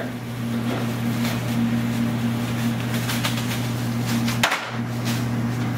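Clear plastic bag crinkling in short, scattered bursts as a bone-in ribeye is handled and slid out of it, over a steady low electrical hum that breaks off briefly about three-quarters of the way through.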